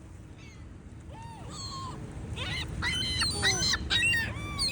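A flock of seagulls calling, with overlapping squawks. The calls begin about a second in and grow louder and more frequent as more birds join.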